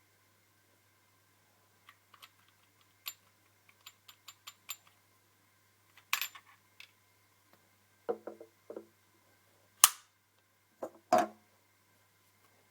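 Handling clicks from the Walther CP88 pellet pistol: a quick run of small metallic clicks, then heavier knocks and one sharp, loud snap about two-thirds of the way in.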